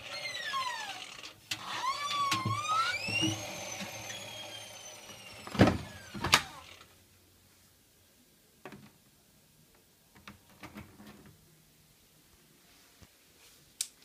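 Squeals gliding up and down in pitch as a hand rubs and turns the wet stainless-steel drum of an AEG Öko-Lavamat washing machine, then two loud knocks under a second apart and a few faint clicks.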